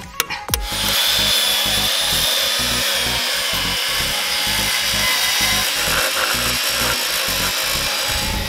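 Large angle grinder starting about half a second in and then running steadily under load, with a high whine, as it cuts through the rubber of a shock absorber mount toward the steel shaft.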